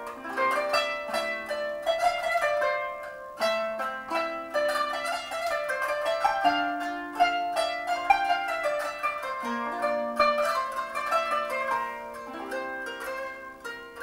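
Kanun, the Turkish plucked zither, played solo with finger picks: quick runs of plucked notes over ringing lower notes, growing quieter near the end.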